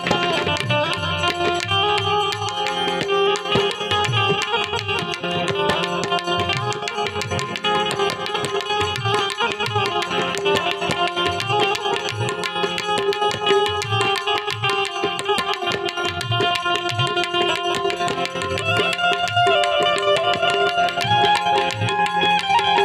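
Instrumental interlude of a Gujarati bhajan: a harmonium playing a sustained melody over a steady tabla rhythm.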